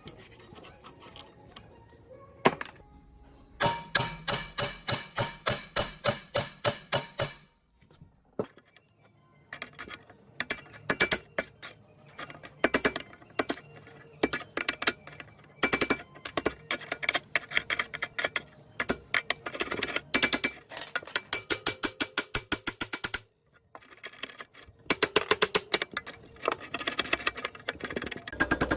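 Rapid taps and clicks on metal parts being worked by hand: a steady run of about four ringing strikes a second for a few seconds, then quicker, uneven clicking.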